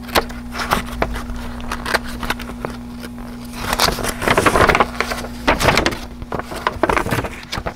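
Paper instruction booklet being unfolded and flipped through by hand: a run of crinkling and rustling, loudest about halfway through and again near the end. A low steady hum runs underneath.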